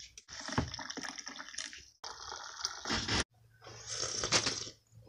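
Hot coffee poured from a French press into a ceramic mug, a splashing pour that breaks off abruptly a couple of times, then a sip from the mug near the end.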